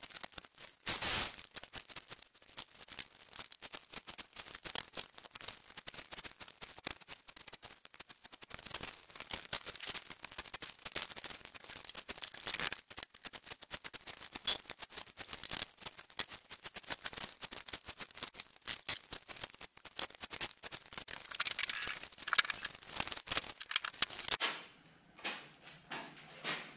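Dense, fast clatter of clicks and knocks from wood stud-wall framing work, with a louder knock about a second in; it cuts off suddenly near the end.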